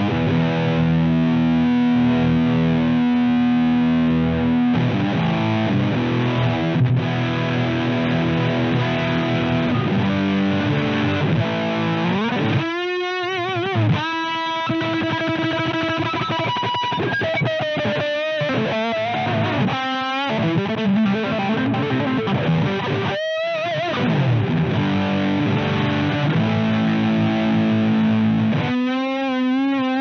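Electric guitar distorted through a Twinote Boogie Distortion pedal. Dense chords and riffs for the first twelve seconds or so, then single held lead notes with wide vibrato, separated by short gaps, then chords again near the end.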